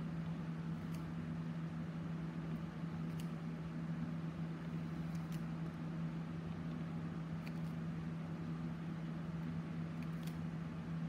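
Steady low mechanical hum, with a few faint clicks about every two seconds.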